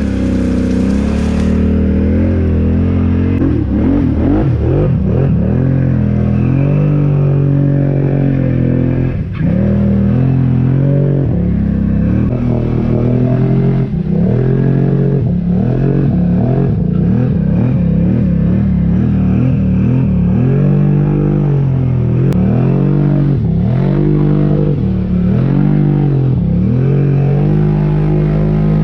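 ATV engine running under load, revving up and down with throttle changes; from about 20 s in, it eases off and picks up again in quick succession.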